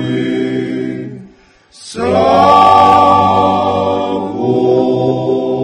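An a cappella choir singing long, held chords of a Dalmatian song. The voices break off briefly about a second and a half in, then come back louder on a long sustained chord.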